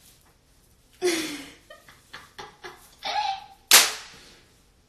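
A young woman sneezing: a sudden burst about a second in, a short breath-like burst around three seconds, then the loudest, a sharp explosive sneeze near the end that dies away quickly.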